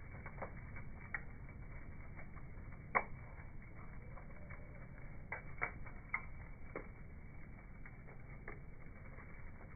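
Wood fire crackling, heard in slow motion: irregular scattered pops, the loudest about three seconds in and a small cluster a little after five seconds, over a steady low rumble.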